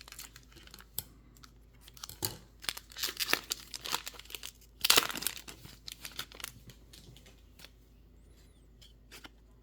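Foil trading-card pack being torn open and its wrapper crinkled, in a run of short rustling tears with the loudest about halfway through, then quieter handling clicks.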